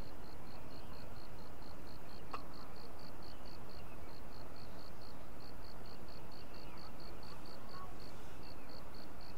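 An insect calling steadily in short high-pitched chirps, about five a second, pausing briefly a few times, over an even background hiss. A single light click sounds about two and a half seconds in.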